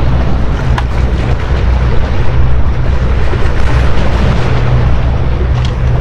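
Wind buffeting the microphone: a loud, steady rumble with a hiss over it.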